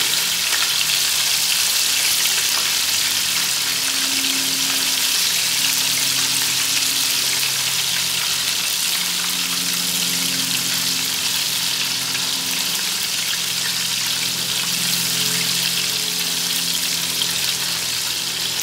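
Breaded chicken strips deep-frying in hot oil in a turkey-fryer pot: a steady, crackling sizzle of bubbling oil.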